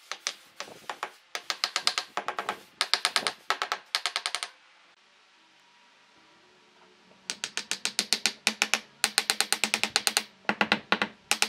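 Rapid mechanical clicking in short runs, about ten sharp clicks a second. It stops for a couple of seconds midway, then resumes with a faint steady hum beneath it.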